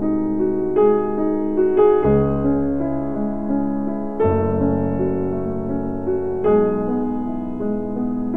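Slow, gentle piano music, sustained chords changing every second or two.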